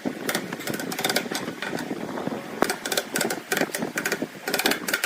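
A power tool working wood, giving a rapid clattering in short irregular runs.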